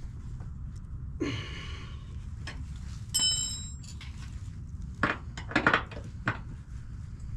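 Metal tools and fittings clinking and knocking during work on a propane fitting, with a short scrape about a second in and a bright metallic ring a little after three seconds.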